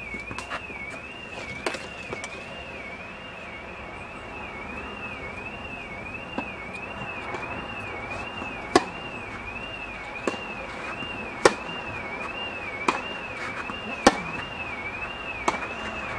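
Tennis rally: sharp pops of the ball struck by rackets, about one every second and a half, the loudest in the second half. Under them runs a steady high warbling tone that wavers up and down about one and a half times a second.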